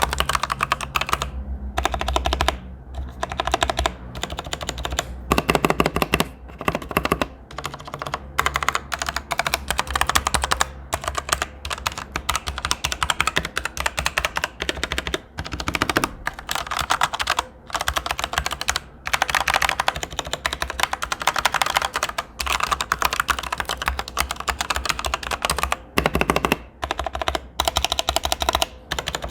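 Fast typing on a Machenike K600 96% mechanical keyboard with unbranded switches: a dense run of key clacks with a few short pauses. The stabilizers sound lubed.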